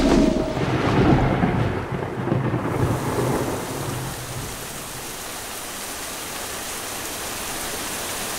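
Thunder rumbling loudly, dying away after about four seconds into the steady hiss of heavy monsoon rain.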